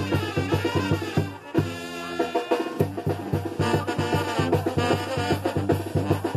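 Live brass band with drums playing a fast dance tune. About one and a half seconds in, the beat stops while the horns hold a chord for about a second, then the drums pick up again.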